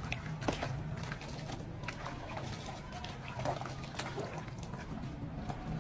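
Sand-and-cement ('sandment') chunks being crushed: irregular crunches and small crackles of crumbling material over a steady low hum.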